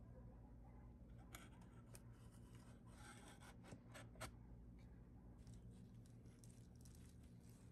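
Faint handling of a wooden molding flask: a few light knocks and clicks as the cope is fitted onto the drag, then scratchy rubbing of sand being sifted through a riddle. A low steady hum sits underneath.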